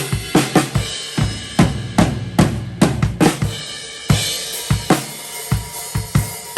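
Acoustic drum kit played in a recording-studio sound check: steady kick and snare hits with cymbals, a run of low tom hits in the middle, and a cymbal crash about four seconds in.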